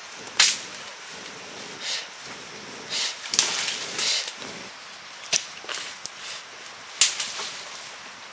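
Cooking sounds: irregular sharp clicks and knocks with a few short scrapes, over a steady high hiss.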